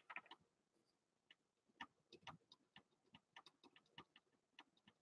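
Near silence: room tone with faint, irregular small clicks scattered through it.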